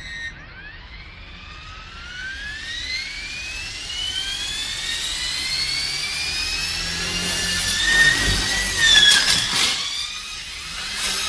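Radio-controlled model helicopter spinning up, its motor whine rising steadily in pitch for about seven seconds. Around eight seconds in the sound turns rough, with loud knocks and a wobbling pitch, and clattering starts again near the end, as the test goes wrong.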